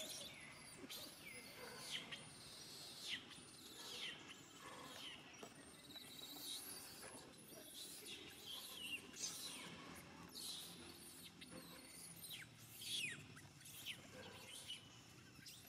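Faint, high-pitched animal calls: short chirps or squeaks, each falling quickly in pitch, coming irregularly about once or twice a second over a faint steady hiss.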